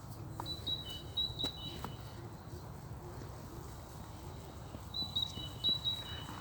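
A small songbird singing two short phrases of thin high notes that alternate between two pitches, the first about half a second in and the second about five seconds in, over a low steady rumble.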